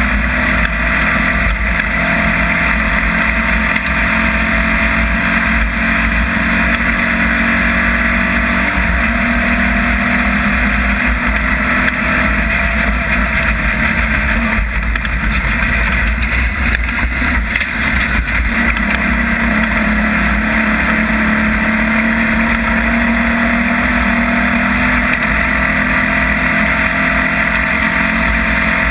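Off-road race vehicle's engine running hard at speed, its pitch shifting a little with the throttle and briefly unsettled about halfway through.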